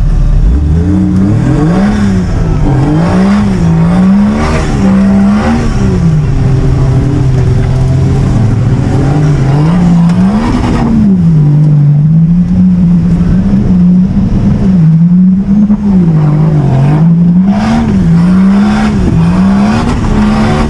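Off-road 4x4's engine revving hard, its pitch rising and falling over and over about once a second, with a couple of steadier stretches in between.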